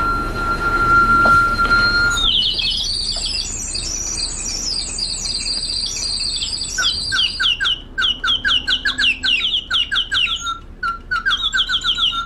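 Water-driven mechanical singing bird, a reconstruction of Heron of Alexandria's siphon automaton, whose whistle is blown by air that the rushing water forces through the pipes. A steady whistle with a hiss stops about two seconds in. Warbling high chirps follow, turning into quick repeated falling chirps, about three or four a second, from about seven seconds in.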